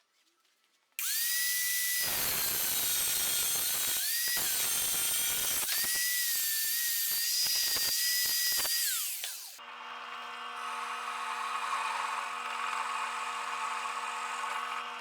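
A handheld power tool runs with a high whine for about eight seconds, its pitch dipping briefly twice as it bears down, then winds down and stops. A quieter, steady machine hum follows.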